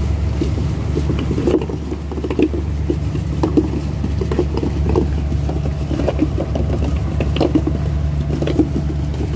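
Fishing boat's engine running with a steady low drone, under irregular short knocks and patter.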